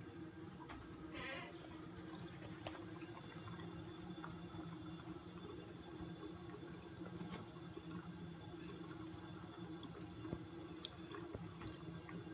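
A thin stream of water running steadily from a bathroom mixer tap into a ceramic sink basin. A few faint ticks come near the end.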